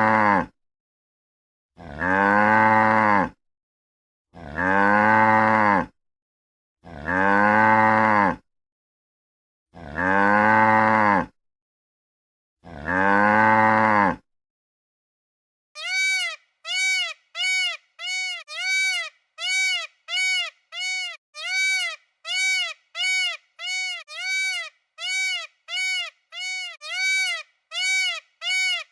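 A cow mooing: six identical long low moos, one about every two and a half seconds. After a short pause, a run of short high-pitched bleats follows, about one a second.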